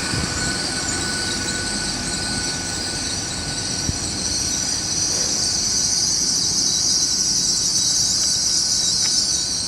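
Great Western Railway Class 800 train pulling into the platform. Its wheels and brakes give a high hissing squeal that grows louder over the last few seconds, over a steady rumble, with a faint steady whistle tone in the first few seconds.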